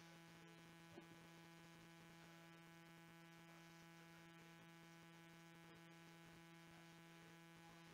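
Near silence with a steady electrical hum, and a faint click about a second in.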